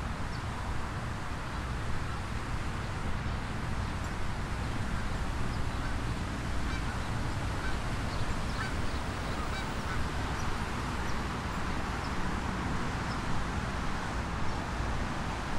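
Geese honking among other waterfowl calls over a steady low background rumble, with short high chirps scattered throughout.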